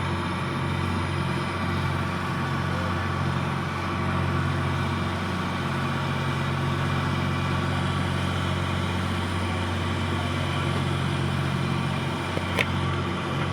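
Steady, unchanging hum of an engine or heavy machine running at a constant speed, with one sharp click near the end.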